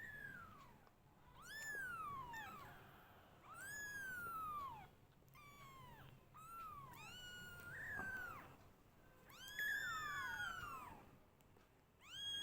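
Newborn Persian kittens mewing: a string of thin, high cries, each rising and then falling in pitch, about one every one to two seconds. Two kittens' cries overlap a little after ten seconds in.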